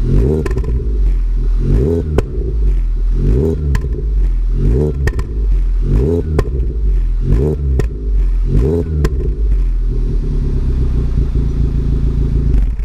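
2012 VW Polo Vivo's 1.4-litre four-cylinder petrol engine through a 50 mm free-flow exhaust, heard at the tailpipe. It is revved in about seven quick throttle blips, each rising and falling, then settles to a steady idle near the end.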